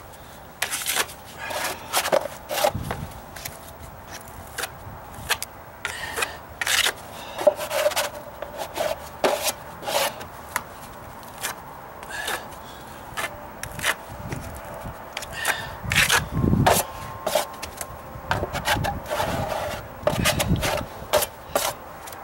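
Metal putty knife scraping and spreading wet filler across a wooden deck step in short, irregular strokes.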